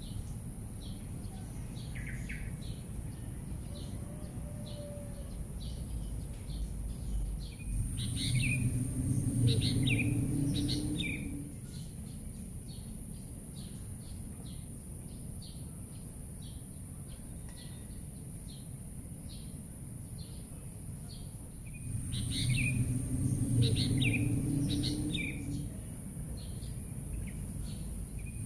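Dawn chorus of small birds chirping with many short repeated calls, over a steady high-pitched hiss. Twice a louder low rumble swells for a few seconds and fades.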